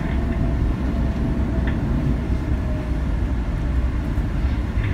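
Boeing 787-10 airliner rolling out along the runway after landing, heard from inside the cabin: a steady low rumble of wheels and engines with a faint steady whine over it.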